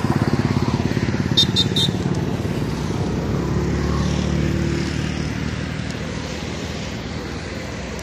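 A vehicle engine running, loudest in the first couple of seconds and slowly fading. Three short high chirps come about a second and a half in.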